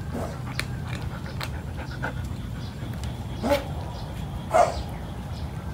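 A cat crunching dry kibble from a metal tray: a run of short, sharp crunches and clicks. Two louder short sounds come about three and a half and four and a half seconds in.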